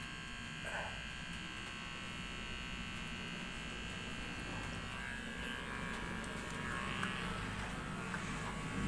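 Electric hair clipper running with a steady motor buzz. Near the end it is run over a shaved scalp.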